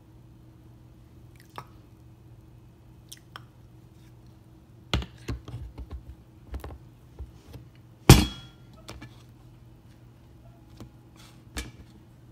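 Kitchen items handled on a counter while a peanut butter and jelly sandwich is made: scattered taps and knocks, a quick run of clatter about five seconds in, and one loud clunk about eight seconds in that rings briefly. A low steady hum underneath.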